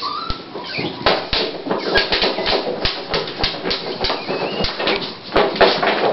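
Toy Pinscher bitch in early labour digging and scratching at a fleece blanket, her paws rasping and rustling the fabric and knocking the floor in irregular quick strokes: nesting before whelping.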